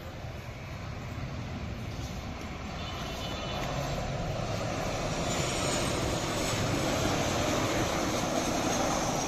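Boeing 737 airliner's twin jet engines on low final approach, with gear down. It is a steady rushing noise that grows louder as the plane comes close overhead and is loudest near the end.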